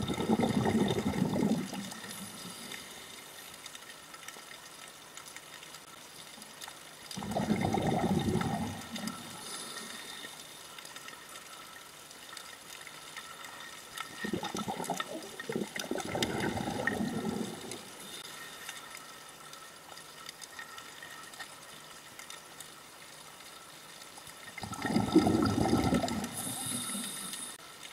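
Scuba diver's exhaled breath bubbling out of the regulator, heard underwater: four bursts of bubbles, roughly every eight seconds, each lasting one to three seconds, with a faint steady hiss between them.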